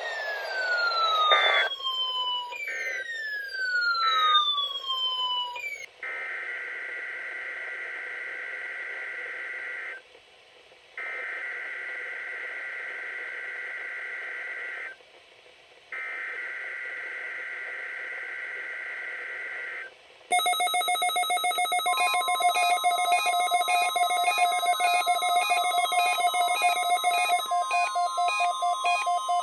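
Electronic emergency-alert tones. The first few seconds are repeated falling sweeps. Then come three long steady tones, each about four seconds with a short break between them, and from about twenty seconds in a fast-pulsing, ringing alarm, joined shortly after by a held steady tone.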